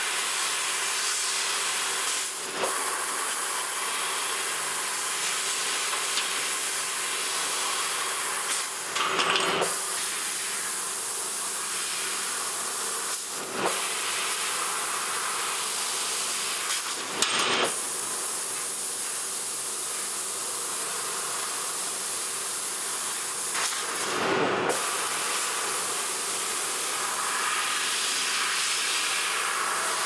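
Laguna FC fiber laser cutting stainless steel sheet: a steady hiss of the cutting head's assist gas jet through the cut, with a few brief bursts along the way.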